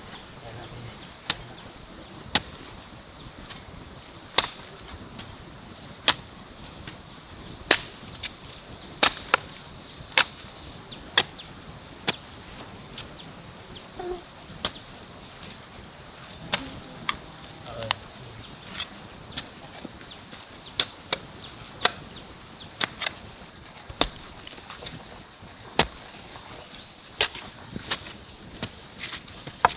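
A hand hoe chopping into hard, dry, stony soil, roughly one sharp blow a second at an uneven pace, over a steady high hum of insects.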